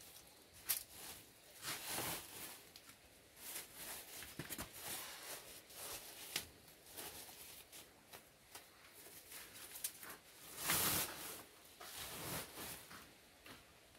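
Rustling of a woven plastic sack and crunching of styrofoam pieces as they are gathered up and stuffed into it, in irregular bursts with small clicks, the loudest near the end.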